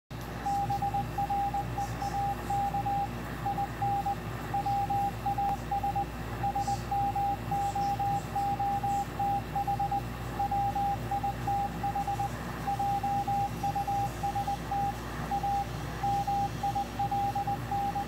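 W1AW Morse code (CW) signal received on the 80-metre amateur band at 3581.5 kHz and heard from a shortwave receiver's speaker. It is a single steady beep keyed on and off in dots and dashes, over a steady background hiss and hum.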